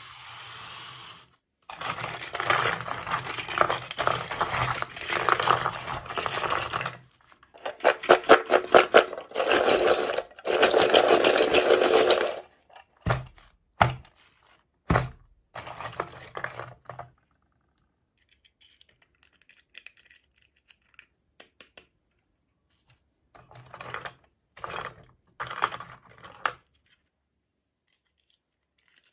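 Toy packaging being handled and opened: long stretches of rustling and crinkling, then three sharp knocks and a few fainter clicks and rustles.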